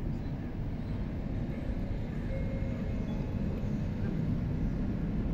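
Steady low background rumble of outdoor ambience, with no distinct event standing out above it.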